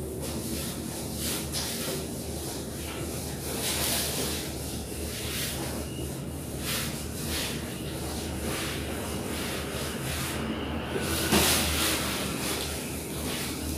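Cloth being rubbed over stair steps by hand: a run of short swishing wipes about a second apart, with a louder swish about eleven seconds in.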